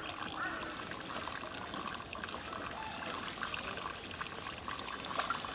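Water dripping and trickling off a wet cast net onto a pond's surface as a continuous patter of many small drips.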